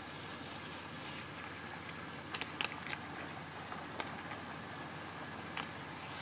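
Shallow river water rushing steadily over a ford's ledge, with a few scattered splashes and clicks as a mountain bike rides through the water.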